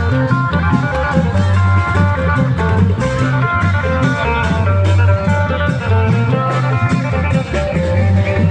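Isan klong yao long-drum band playing: a melody on an amplified plucked string instrument over a pulsing deep drum beat.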